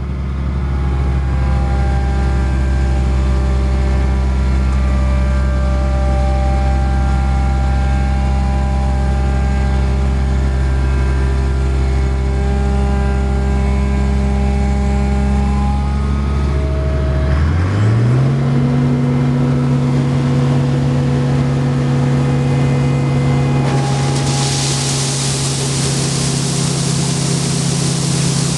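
International 1480 axial-flow combine running steadily while unloading corn, its engine and machinery making a steady hum. About two-thirds of the way in, the low hum drops away and the pitch glides up and settles higher. Near the end a loud steady hiss joins in.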